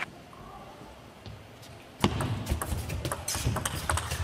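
A quiet hall for about two seconds. Then a table tennis rally starts: a plastic ball clicks in quick, irregular succession off the rackets and the table.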